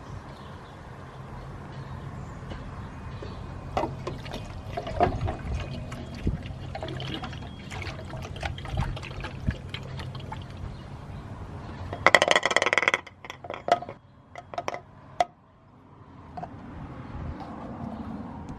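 Liquid pouring and gurgling, most likely coolant being filled back into the engine's cooling system, over a steady low hum with scattered clicks and knocks. A loud rush of noise comes about twelve seconds in.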